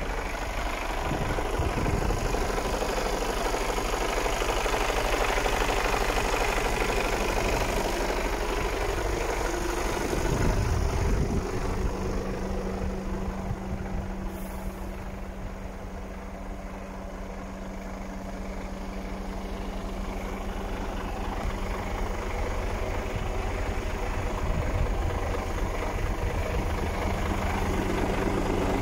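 Mercedes-Benz Actros 1843 truck's inline-six diesel engine idling steadily.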